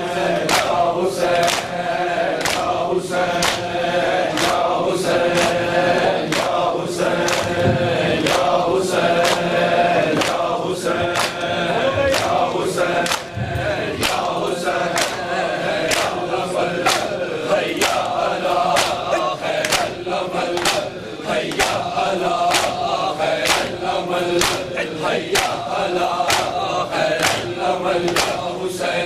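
A group of men chanting a noha together while beating their chests in unison (matam), a sharp slap on every beat a little more than once a second.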